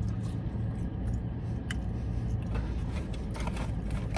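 Chewing and small mouth and food-handling noises of someone eating french fries, over the steady low hum of a car cabin.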